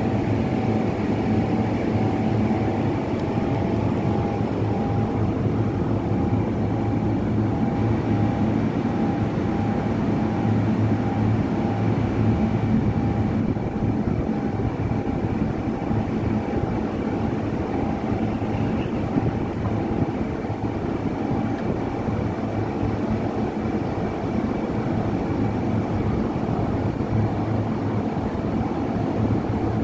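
Steady mechanical hum of machinery running continuously: a low drone with a fainter, constant higher whine over it.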